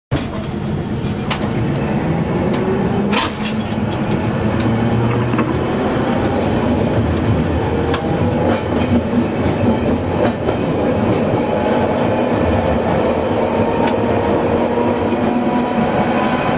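Kumamoto City Tram 1060-type streetcar running, heard from inside the car: the hum and whine of its nose-suspended traction motors and gearing, rising in pitch as it gathers speed, over a steady rumble of wheels on rail. Sharp clicks from the track come now and then.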